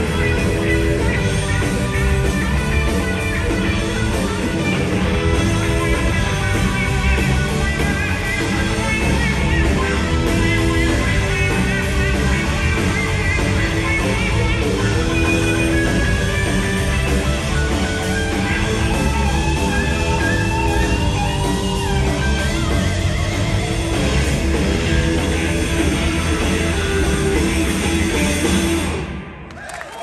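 Live blues-rock band playing an instrumental passage: electric guitars over bass guitar and drums. The song stops about a second before the end.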